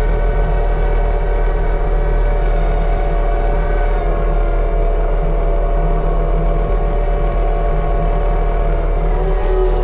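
Mini excavator running steadily with its hydraulic Rut brush cutter head turning: an even, many-toned mechanical hum that holds its pitch and level.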